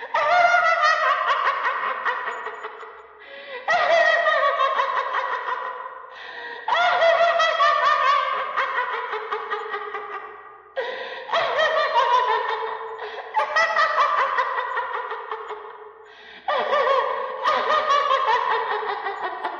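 Yandere-style crazed laughter in a high-pitched voice, in about six bouts that each break out suddenly and slide down in pitch as they fade.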